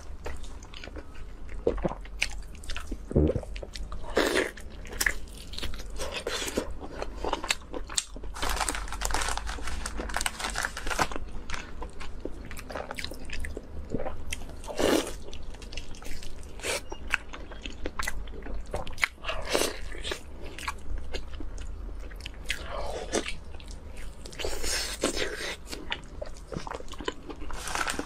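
Close-miked eating: a woman biting into and chewing a crisp-skinned fried food, an irregular run of sharp bites, crackles and mouth sounds.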